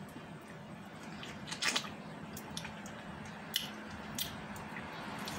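Wet mouth sounds of someone sucking and chewing a salted lemon slice: scattered sharp smacks and slurps, the loudest a quick cluster a little under two seconds in, over a faint steady hum.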